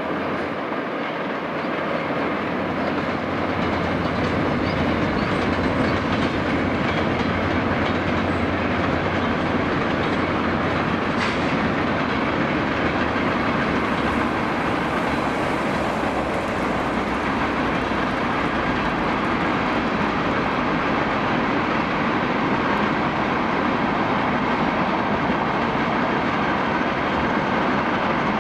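Freight train of tank cars rolling past: a steady rumble of steel wheels on the rails, getting a little louder over the first few seconds.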